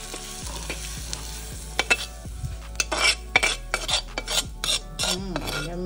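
Metal spoon scraping and tapping against a metal pan as roasted black chickpeas and grated coconut are scraped out into a bowl, in a quick run of short strokes starting about two seconds in.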